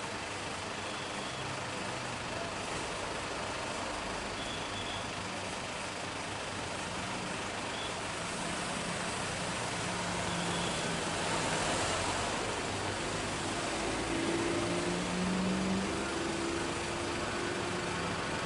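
Boeing 737 airliner's twin jet engines at takeoff thrust through the takeoff roll and lift-off, a steady rushing jet noise that grows louder from about eight to twelve seconds in and stays loud as the plane climbs away.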